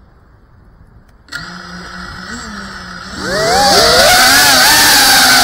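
FPV racing quadcopter's brushless motors spin up on the ground, first a steady low idle hum about a second in, then several whining tones that rise together into a loud, steady propeller whine as the throttle comes up for takeoff.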